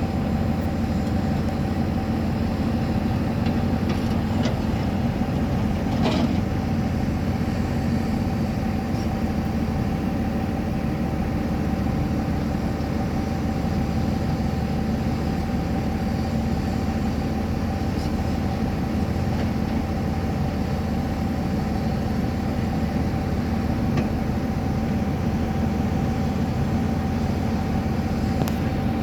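Heavy excavator's diesel engine running steadily, a low drone with a steady high whine over it, and a brief knock about six seconds in.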